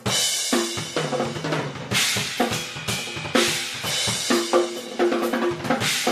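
Acoustic drum kit played busily: rapid snare and bass drum hits with crash cymbals struck and ringing out as accents at the start, about two seconds in and again about a second later.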